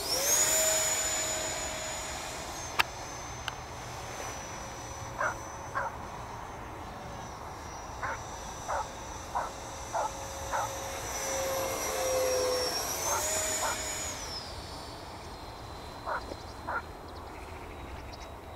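Electric ducted-fan motor of an Arrows Hobby BAe Hawk RC model jet running: a high, steady whine that spools up sharply at the start, climbs briefly about 13 seconds in, then drops to a lower pitch.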